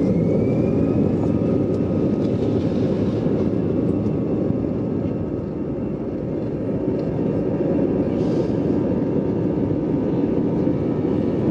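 Jet airliner's engines at takeoff power, with the runway rumble, heard from inside the cabin during the takeoff roll: a loud, steady, deep rumble. A faint whine rises in pitch in the first second or so.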